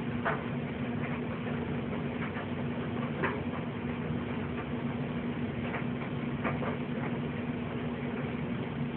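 A steady machine-like hum, one constant low tone under an even hiss, with a few faint clicks scattered through it.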